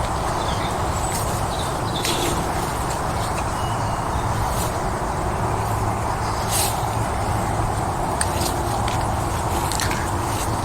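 Footsteps and brushing of someone walking along an overgrown woodland path, a few crisp swishes standing out over a steady low rumbling noise.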